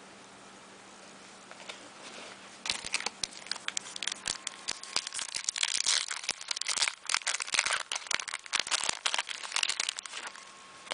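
A trading-card pack wrapper being torn open and crinkled by hand, starting about two and a half seconds in and carrying on in a dense run of crackles for several seconds.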